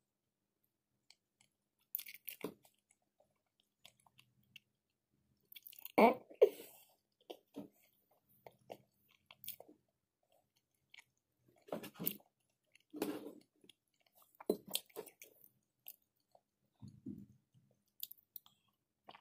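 Close-miked chewing of a mouthful of macaroni salad with chicken and steamed vegetables: irregular wet mouth clicks and smacks, loudest about six seconds in and again around twelve to fifteen seconds.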